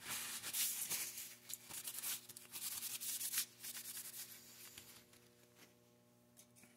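Cotton rag wiping a steel rifle barrel, a rough rubbing and rustling that tails off after about four seconds.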